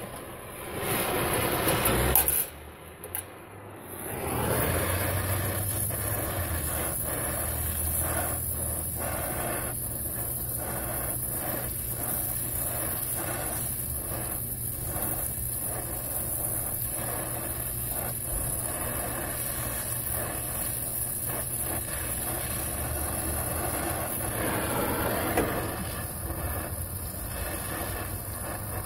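Oxy-fuel brazing torch burning steadily with an even rushing hiss as it heats a copper refrigerant line joint on a compressor. The steady flame noise sets in about four seconds in, after a brief lull.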